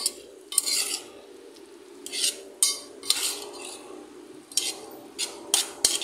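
A spoon stirring potatoes in a cream sauce in a stainless steel pot, scraping and clinking against the pot about eight times in short, irregular strokes.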